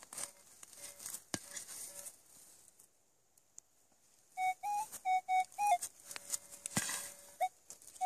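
Metal detector signalling a buried metal target: a run of short, same-pitched beeps starts a little before halfway through, then a longer, fainter held tone. Before the beeps come faint scratching and clicks from digging in soil, then a near-silent moment.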